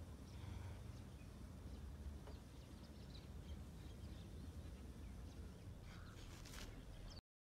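Faint outdoor ambience: a steady low rumble of wind with a few faint high chirps, cutting off abruptly to silence near the end.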